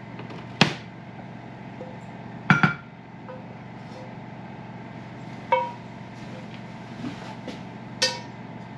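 Cookware clanking: a frying pan and spatula knocking against a ceramic casserole dish as the pan is emptied and scraped into it. There are a handful of sharp clanks over a steady low hum, a quick double knock about two and a half seconds in, and one more near the end as the pan is set in the sink.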